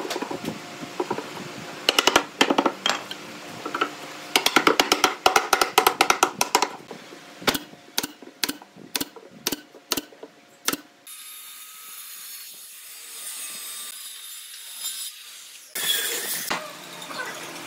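Workshop tool work on wood: quick runs of sharp knocks and taps, then a string of single knocks about half a second apart. About eleven seconds in, the knocks give way to a steady hiss.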